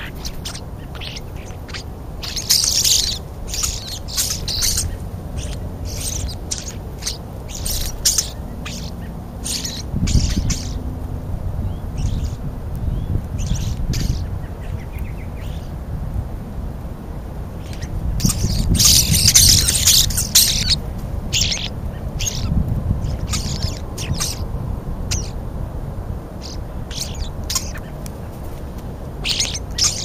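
A flock of European starlings feeding at close range, giving short, harsh chattering and squawking calls in irregular bursts, busiest a few seconds in and again past the middle, over a steady low rumble.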